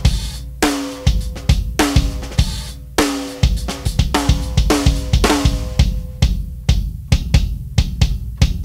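Gretsch drum kit played in a steady groove: open, undamped 24-inch bass drum with nothing inside it, snare backbeats with a ringing tone, and hi-hat and cymbals over the top.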